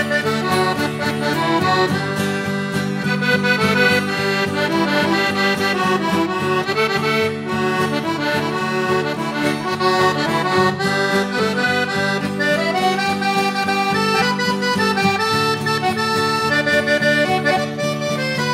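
Folk band playing an instrumental passage with no singing: accordion leading over strummed acoustic guitars and a steady percussion beat.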